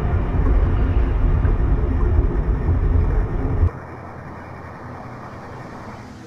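Loud, dense low rumble that cuts off abruptly a little past halfway, leaving a quieter steady hiss.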